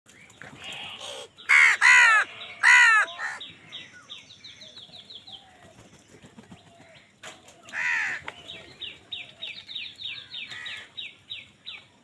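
House crows cawing harshly around a food bowl, with a burst of loud caws a second or two in and another near the middle. Between them runs a quicker series of short, high repeated calls.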